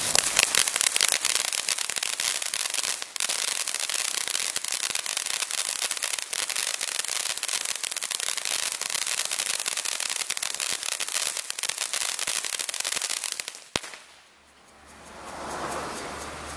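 200 g ground fountain firework spraying sparks: a steady hiss thick with rapid crackling pops. It stops abruptly about 14 seconds in, with a last sharp crack.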